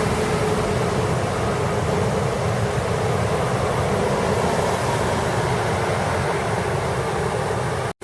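Steady rushing noise of floodwater, with a faint steady hum underneath.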